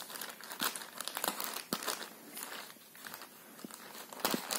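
Scissors cutting along the edge of a thin plastic courier mailer bag: the plastic crinkles and crackles irregularly as it is handled, with a few sharper snips, the loudest near the end.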